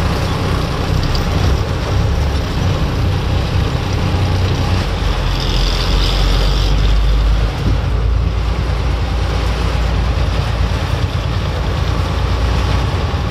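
Steady noise inside a moving container lorry's cab: a deep, even rumble of the engine and tyres on a wet road, with the hiss of heavy rain on the windscreen.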